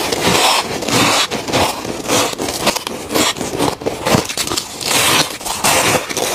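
Mouthfuls of freezer frost being bitten and chewed, a dense run of squeaky, crackly crunches close to a clip-on microphone.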